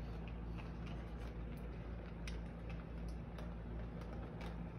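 Electric model train running on its track: a steady low hum with irregular light clicks and ticks from the wheels and track.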